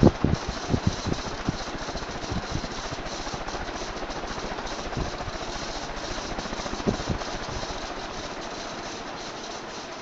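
Vintage AMC ceiling fan running with a steady whir and irregular knocks and rattles. The knocks are frequent at first and thin out after a couple of seconds, and the sound slowly gets quieter toward the end.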